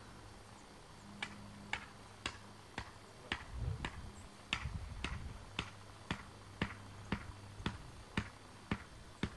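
Regular ticking, about two sharp ticks a second, steady in pace, with a brief low rumble about three and a half seconds in.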